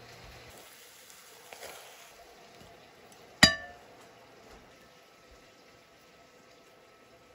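A utensil strikes the ceramic plate once with a sharp clink that rings briefly, about three and a half seconds in. Softer handling sounds of spoon and rice come before it.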